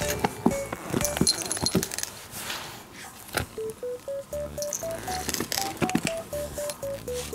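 Light background music with a simple stepping melody, over irregular sharp metallic clinks and taps as a cat rubs its head and body against a bicycle wheel's spokes.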